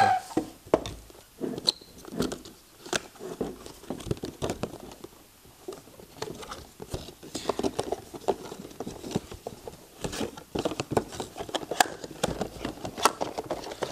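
Cardboard box and clear plastic packaging handled and pulled apart by hand: irregular scraping and rustling with many small clicks and taps.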